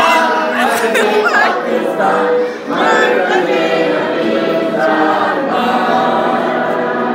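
A choir singing, many voices holding long notes together, with a brief dip in loudness about two and a half seconds in.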